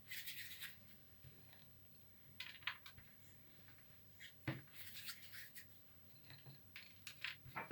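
Faint rustling and scratchy crackles of hands working soft cookie dough and pressing it into chopped hazelnuts, with a light tap about four and a half seconds in.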